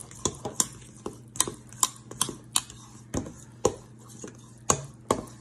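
A utensil stirring thick chocolate cake batter in a stainless steel mixing bowl, clinking and scraping against the metal in irregular knocks, about two or three a second.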